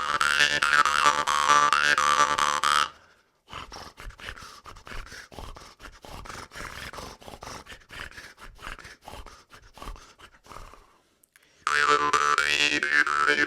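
Bebb Johnson Midrange jaw harp playing a steady twanging drone with a shifting overtone melody, stopping about three seconds in. There follows a long stretch of much quieter mouth and breath sounds with rapid clicking, the same technique done without the harp, and the jaw harp drone comes back near the end.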